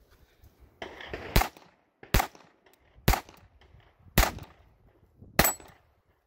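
A SIG P226 pistol in .22 LR rimfire fires five single shots, roughly a second apart, each with a short trailing echo.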